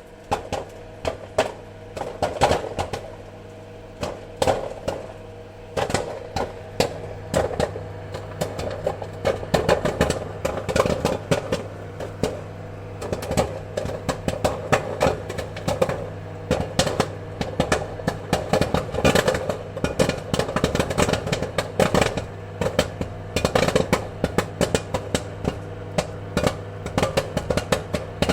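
Popcorn kernels popping in a quick, irregular patter of sharp pops, sparse for the first few seconds and then dense, over a steady low hum.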